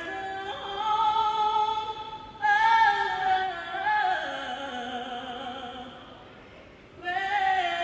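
A woman singing solo in long, held notes with a wavering pitch. One phrase dies away and a new one begins near the end.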